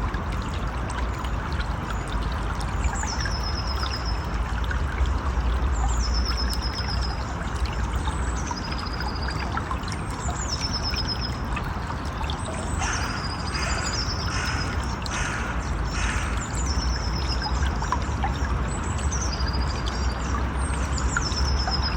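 River water running steadily, with a bird repeating a short high call that slides downward about every two seconds.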